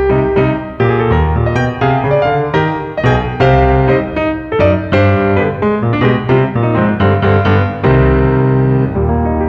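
Steinway concert grand piano played solo: a quick flow of struck notes and chords over deep bass, with a chord held about eight seconds in.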